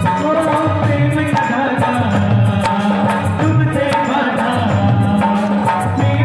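Amplified live Hindi devotional bhajan music with a steady drum beat and a melodic line.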